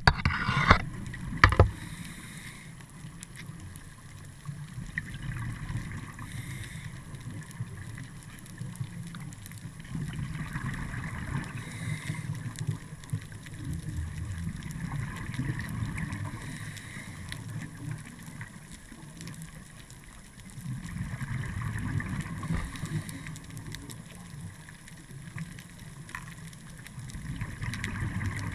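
Underwater sound through a GoPro housing: a scuba diver's regulator breathing, a low bubbling rumble and hiss that swells in slow cycles about every five to six seconds. Two sharp knocks come within the first two seconds.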